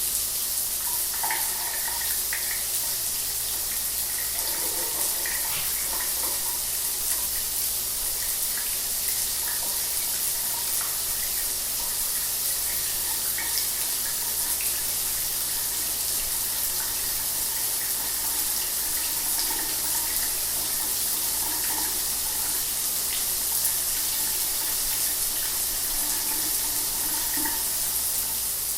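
Shower water running steadily, an even hiss of spray falling, with small irregular splashes.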